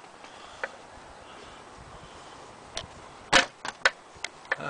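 A faint steady hiss broken by several short sharp clicks and knocks, most of them in the second half, the loudest about three and a half seconds in.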